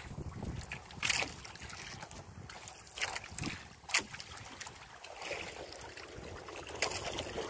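Wind buffeting the microphone and water washing against the hull of a small outrigger boat, with a few brief louder surges.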